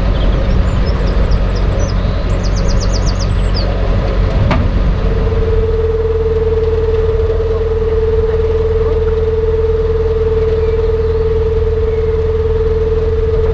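Narrowboat engine running steadily at low revs. About five seconds in, a steady single-pitched tone joins it and holds almost to the end.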